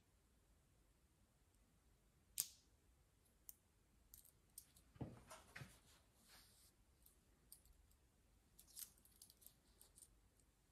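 Faint handling noises from a USB cable and its hardware. There is a sharp click about two seconds in, a couple of soft thumps around the middle, then a run of light clicks as a small metal clip is fastened to a belt loop.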